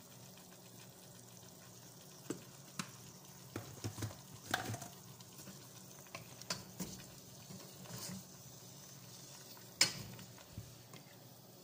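Wooden spatula stirring chicken pieces in a pot over a faint sizzle of frying, with scattered clicks and knocks of the spatula, the sharpest near the end.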